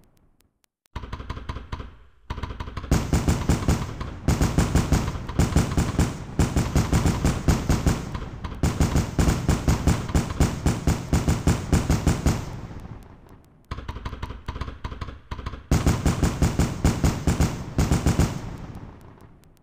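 Fireworks going off in rapid barrages, several loud bangs and crackles a second. There is a pause of about two seconds about two-thirds of the way through, and the sound fades out near the end.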